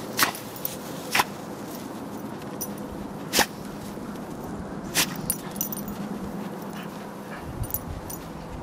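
A dog playing and nosing in snow, giving a few short, sharp sounds about a second or two apart, the loudest about three and a half seconds in.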